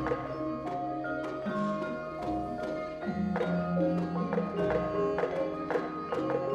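Javanese gamelan playing court bedhaya dance music: struck bronze keyed instruments and gongs ringing on in a steady pulse of about two to three strokes a second.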